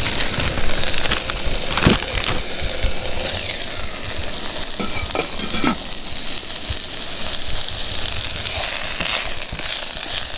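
Diced onion and mange tout sizzling in olive oil in a pan on a portable gas stove, stirred with a plastic spoon. The sizzle is a steady hiss with crackles, with a sharp click about two seconds in.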